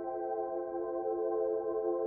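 Ambient background music: a slow chord of steady, sustained tones held without a break.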